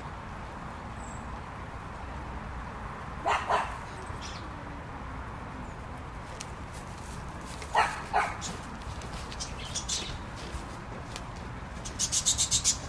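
A dog barking twice, a quick pair of barks about three seconds in and another pair about eight seconds in. Near the end comes a quick, high rattling run of about seven short notes.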